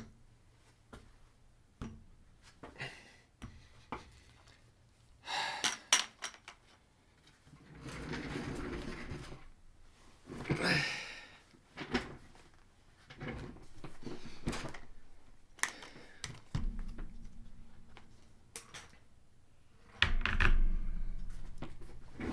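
Scattered knocks and clicks with stretches of rustling, like objects being handled in a small room, and one louder heavy thump near the end.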